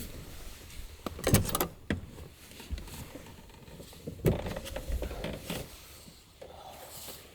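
A few sharp knocks and clicks, one about a second in, another in the middle, with faint rustling between them: handling sounds of things being moved about.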